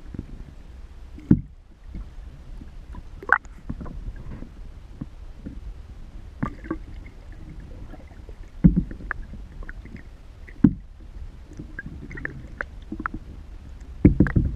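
Muffled water noise heard by a camera submerged beside a kayak's hull: a steady low rumble of water moving past, with sharp knocks and clicks about every two seconds as the kayak is paddled.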